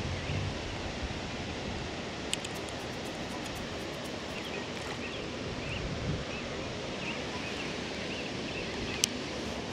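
Steady outdoor lakeshore ambience: an even rushing hiss of breeze and rippling water, with faint scattered bird chirps. There are a few sharp clicks, the loudest about nine seconds in.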